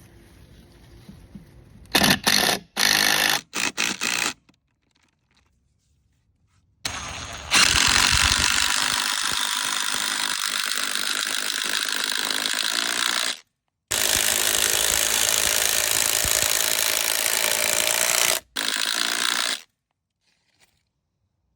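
Power driver sinking a 6-inch Timberlock structural wood screw into a wooden fence post. A few short trigger bursts come first, then two long runs of several seconds each with a brief stop between, and a short last burst.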